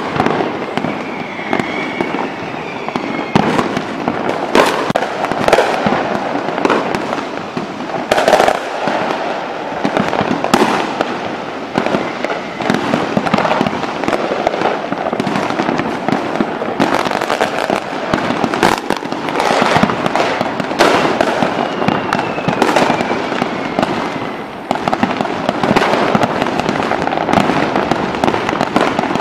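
A fireworks display: aerial shells bursting in a dense, irregular run of bangs over continuous crackling. A faint whistle sounds about a second in, and a falling one about 21 seconds in.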